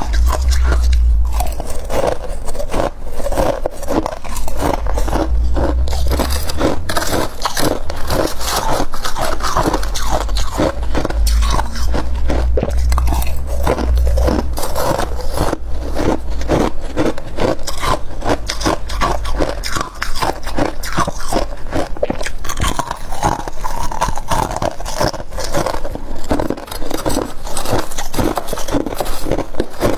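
Close-up crunching of freezer frost being bitten and chewed, mixed with scraping, in rapid dense strokes throughout. A low rumble sits underneath for about the first half.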